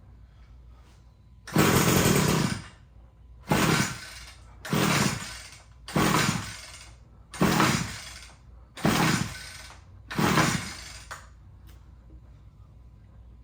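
Recoil pull-starter of a Wild Badger multi-tool trimmer's two-stroke engine, pulled seven times on choke, each pull a short spinning rasp that dies away without the engine catching. The first pull is the longest; the owner says the engine almost wanted to start on that pull, but it will not start.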